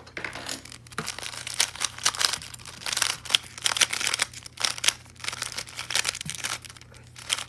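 YuXin Black Kirin V2 3x3 speedcube being turned quickly, a dense, irregular run of plastic clicks and clacks as the layers snap past each other. The turning works in piece lube just dropped into it.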